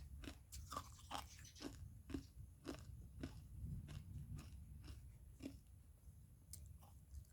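Ice cubes being crunched and chewed in the mouth, about two crunches a second, growing fainter and sparser toward the end.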